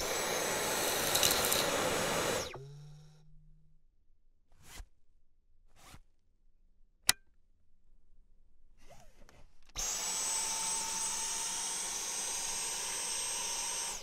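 Dyson V10 cordless stick vacuum running with a high whine while picking up dust and crumbs, stopping after about two and a half seconds. After a few faint clicks and one sharp click, it runs again from about ten seconds in.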